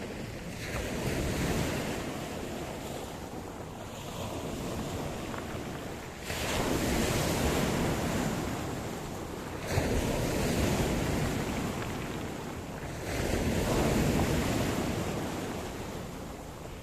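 Sea surf: waves breaking and washing ashore in repeated surges every few seconds, with wind buffeting the microphone.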